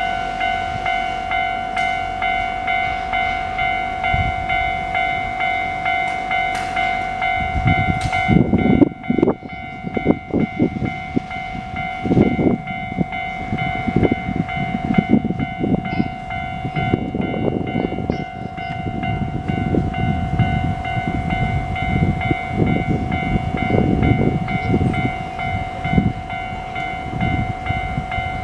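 Japanese electronic level-crossing bell ringing in an even beat of a little under two strikes a second. About eight seconds in, a Keio Line train arrives and passes under the bell with a loud low rumble and rhythmic wheel clatter.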